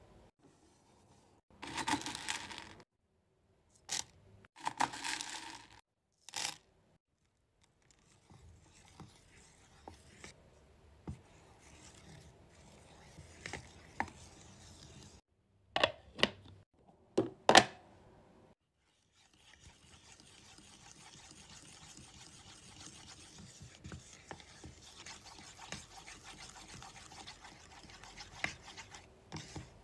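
A wooden spatula stirs thick melted wax in a metal wax-warmer pot, scraping and clicking against the pot in short separate strokes. The loudest strokes come in pairs, then a faint steady hiss follows.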